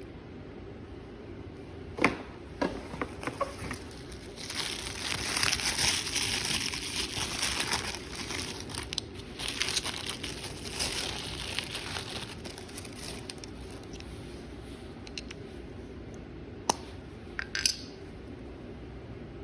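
Packaging crinkling and rustling as it is handled and unwrapped, with a sharp click about two seconds in, a few lighter clicks just after it, and a couple more clicks near the end.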